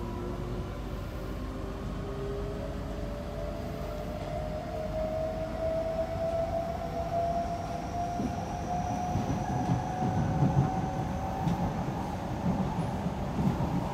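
Kawasaki–CSR Qingdao Sifang C151B electric train heard from inside the passenger car as it accelerates. The traction motor whine rises slowly and steadily in pitch. Wheel-on-rail rumble grows louder in the second half.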